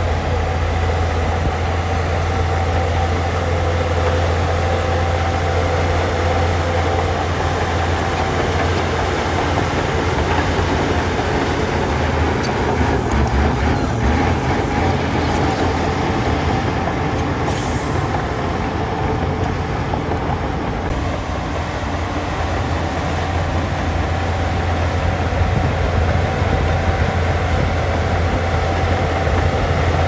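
Heavy diesel earthmoving machinery running steadily, its engine giving a low constant drone, with a brief high hiss a little past halfway.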